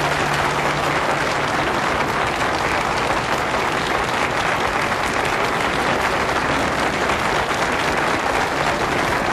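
Studio audience applauding steadily, dense clapping that starts as the song ends, with the song's last low note dying away under it in the first second.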